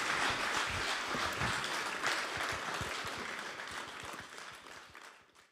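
Congregation applauding, with many hands clapping, slowly fading and then cut off abruptly near the end.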